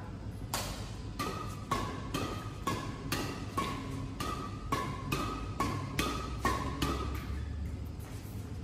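Badminton shuttlecock hit back and forth with rackets in a fast rally, about two hits a second. Each hit is a sharp crack with a short ping from the strings. The hits thin out and grow fainter near the end.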